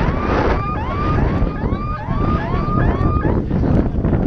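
Siren yelping in a quick run of short rising whoops, about two to three a second, that stops about three seconds in, with wind buffeting the microphone.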